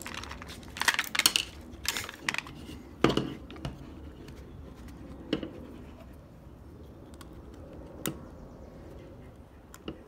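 Clicks and rattles of a car door latch assembly being turned over in the hands, its metal plates and plastic housing knocking, in clusters through the first few seconds, then a few single clicks.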